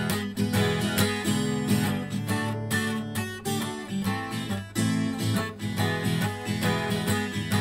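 Acoustic guitar strumming chords in an instrumental passage of a song, with no singing.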